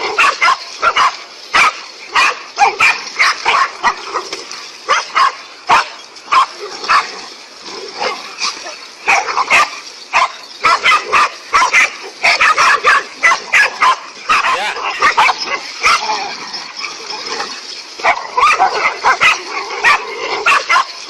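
Animals barking and yelping in a rapid, overlapping stream of sharp, short calls.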